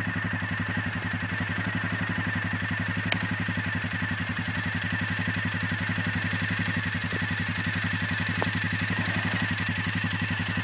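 ATV (four-wheeler) engine running steadily at an even speed, with a fast, regular pulsing.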